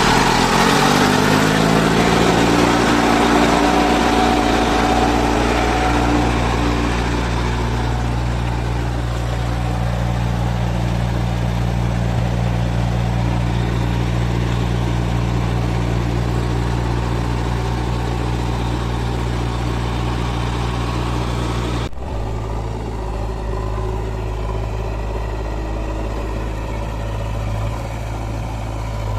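Heavy machine's diesel engine revving up over the first couple of seconds, then running steadily at high speed. About two-thirds of the way through it changes abruptly and runs on at a slightly different pitch.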